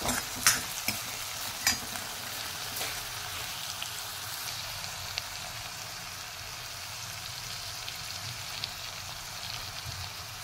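Chopped onions, tomatoes and ginger-garlic paste sizzling in oil in an iron kadhai, with a steel ladle knocking and scraping against the pan a few times in the first two seconds. After that a steady sizzle with small pops continues.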